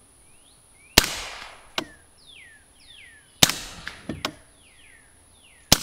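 Three suppressed rifle shots from a Daniel Defense DDM4ISR, a .300 Blackout AR-15 with an integral suppressor, fired semi-automatic about two and a half seconds apart. The first round is the loudest, a first-round pop, and each shot after it is a little quieter as the large suppressor fills with gas. The first two shots are each followed by a fainter crack under a second later.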